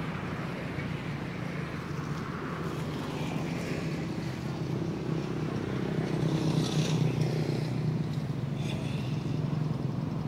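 A motor engine humming steadily, growing somewhat louder in the second half.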